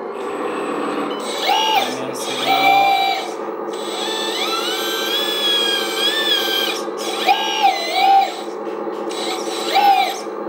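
1/14 hydraulic RC articulated 6x6 dump truck driving: its electric drive motor and reduction gears whine, the pitch rising and falling each time it speeds up and slows, with one longer run about halfway through. A steady low drone runs underneath.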